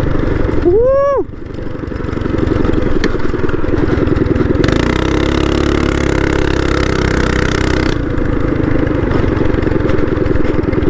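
Harbor Freight Predator 212cc single-cylinder four-stroke engine on a Baja mini bike running under throttle while riding. About a second in there is a brief high-pitched sound that rises and falls, then the engine sound dips and picks back up.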